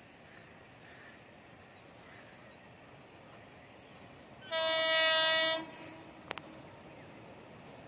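Indian Railways electric locomotive's air horn sounding one steady-pitched blast of about a second, about halfway through, over a faint steady background hiss. A single sharp click follows shortly after the blast.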